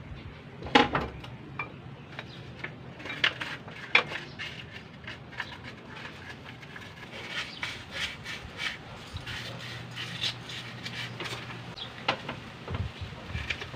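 Irregular metallic clinks and knocks of metal engine parts being handled as the camshafts are set into a Nissan GA16 cylinder head, the loudest knock about a second in.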